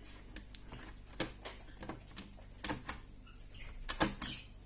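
Hands handling a robot vacuum cleaner and its parts: a few sharp clicks and taps with light rustling between them, the loudest pair of clicks near the end.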